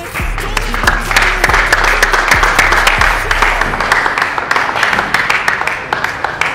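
Applause from a crowd, a dense steady clapping, over background music whose low bass stops about four seconds in.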